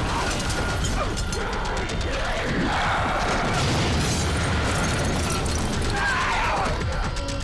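A film sound mix of rapid metallic mechanical clicking and clacking, with music underneath.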